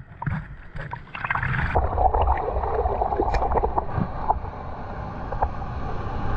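Water sloshing and gurgling over a steady low rumble, with scattered small clicks; the sound changes abruptly about two seconds in.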